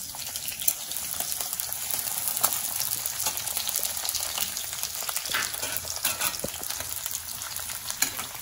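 Chopped garlic sizzling and crackling in hot rice bran oil in an iron kadhai while a steel spatula stirs it.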